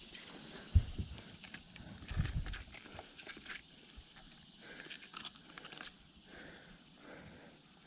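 Handling noise as a netted northern snakehead is unhooked with pliers on the boat deck: scattered clicks, knocks and net rustling, with a sharp thump just under a second in and a few low knocks around two seconds in.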